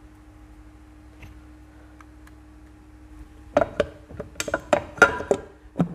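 Metal engine parts and hand tools being handled on a workbench: after a few seconds of faint steady hum, a quick run of sharp metallic clicks and knocks.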